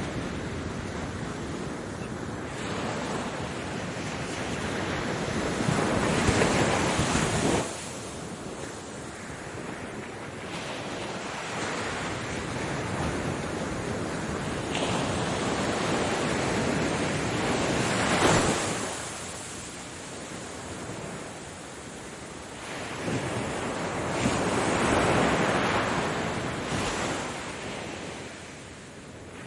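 Ocean waves breaking and washing up the shore in repeated swells, each surge building and then falling away, with wind buffeting the microphone. The loudest surges come about six to seven seconds in, at about eighteen seconds, and at about twenty-five seconds.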